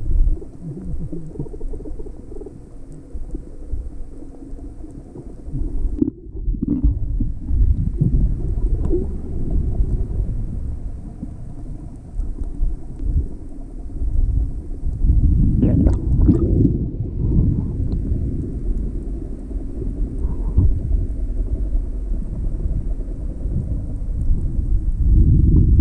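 Underwater water noise: a muffled low rumble and swishing of moving water. There are brief bursts of bubbling about sixteen seconds in and again just before the end.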